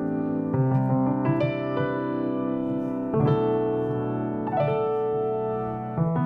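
Nord Stage 4 stage keyboard playing slow sustained chords, a new chord struck every second or two, each ringing on into the next.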